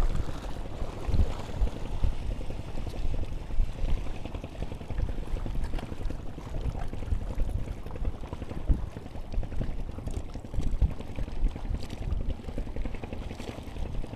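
Wind buffeting the camera microphone in uneven gusts, with water lapping against the concrete breakwater.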